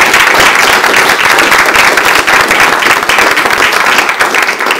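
Audience applauding: dense, steady hand clapping from a roomful of people.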